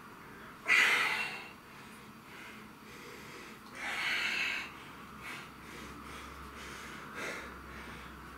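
A man's forceful exhalations as he strains through a set of dumbbell curls. The loudest, sharpest breath comes about a second in and a second strong one around four seconds in, followed by two shorter, fainter breaths.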